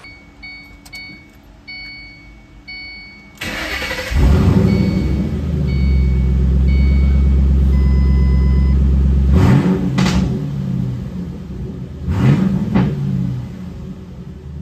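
The car's warning chime beeps several times. About three and a half seconds in, the 2009 Mustang GT's 4.6-litre three-valve V8 cranks and fires, then settles into a loud, steady fast idle. It is blipped twice near the end, with the pitch rising each time, heard from inside the cabin.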